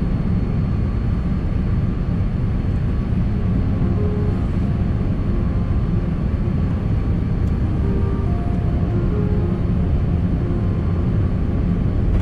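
Steady low rumble of engines and airflow heard inside a Boeing 787-9's cabin on final approach and landing, with soft background music of scattered held notes over it.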